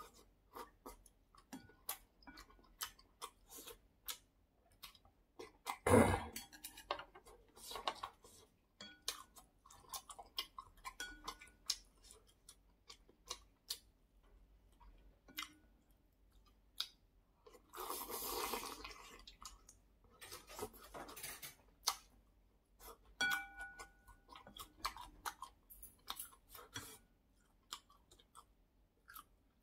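Close-up eating sounds: a man chewing and slurping noodles and soup, with a spoon and chopsticks clicking and clinking against the bowls. The loudest sound is a dull knock about six seconds in, and a short ringing clink comes near the end.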